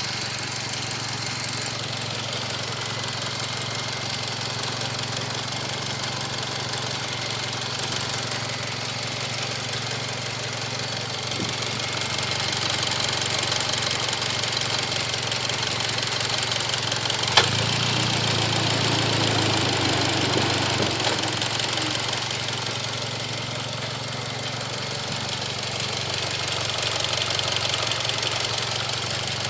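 Mitsubishi Lancer Evolution X GSR's turbocharged 2.0-litre four-cylinder idling steadily with a ticking sound, which the owner later found to be normal for the car. A single sharp click about halfway through, then a deeper hum for a few seconds.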